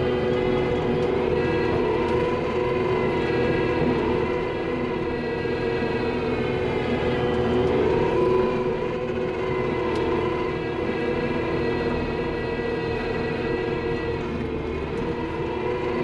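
Skid steer engine and hydraulics running steadily under load with a droning whine, heard from inside the cab, as the machine drives a hydraulic power rake through loose dirt.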